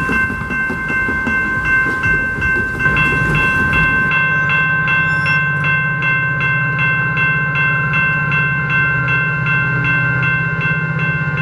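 Railroad grade-crossing bell ringing steadily, about two to three strokes a second, while a passing train rumbles. The rumble ends about four seconds in, leaving the bell over a steady low drone.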